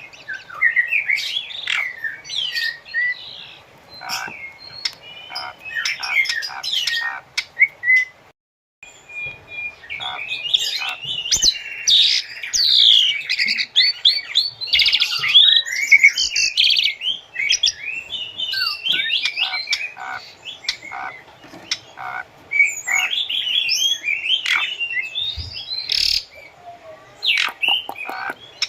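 Asian pied starling (jalak suren) singing a fast, varied song of gliding whistles, harsh squawks and clicking chatter. It breaks off for a moment about eight seconds in, then resumes.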